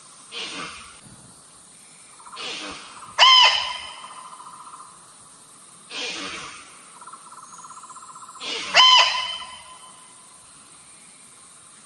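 Female deer calls played as a hunting lure: two short, loud, high-pitched calls about five and a half seconds apart, each sliding up sharply at the start, with softer breathy puffs between them. A steady insect drone runs underneath.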